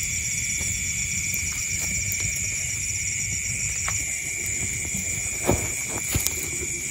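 Steady chorus of night insects, shrill and continuous with a fast pulsing trill in it, over a low rumble. A couple of sharp knocks sound near the end.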